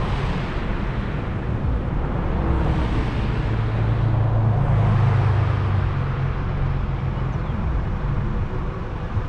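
Car driving along a road: a steady low rumble of engine and tyres with a rushing road noise that swells and eases a few times, loudest around the middle.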